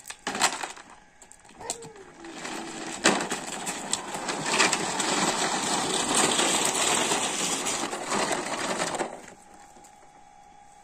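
Plastic toy dump trucks pushed over loose gravel, their wheels and bodies crunching and rattling on the stones, with a few knocks near the start. The rattle grows from about two seconds in and stops suddenly about nine seconds in.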